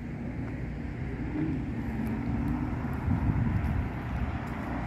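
Road traffic rumbling steadily as cars pass on the street below, mixed with low wind rumble on the microphone.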